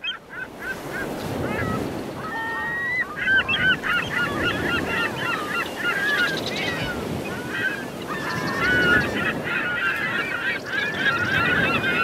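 A flock of geese calling, many short overlapping calls that come thicker from about three seconds in, over a steady rushing background noise.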